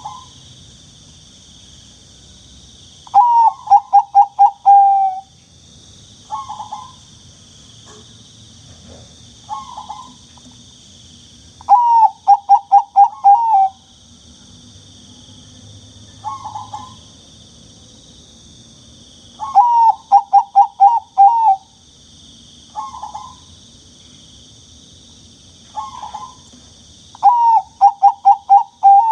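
Zebra dove (perkutut, Bangkok song type) singing: four runs of quick cooing notes, each about two seconds long, with single short coos in between.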